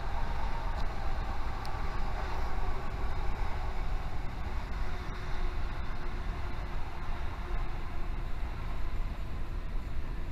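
Passenger train running along a station platform, heard from a carriage window: a steady low rumble of the train's running, with no sharp knocks or horn.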